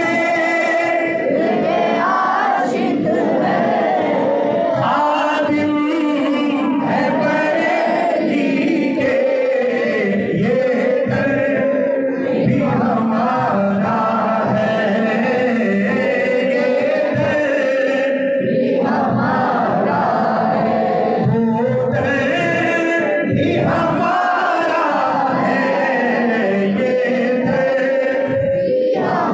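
Men's voices singing a manqabat, a Sufi devotional song, together as a chorus in sustained, drawn-out phrases.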